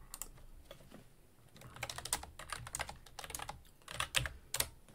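Typing on a computer keyboard: a few scattered key clicks, then a quicker run of keystrokes from about a second and a half in until near the end.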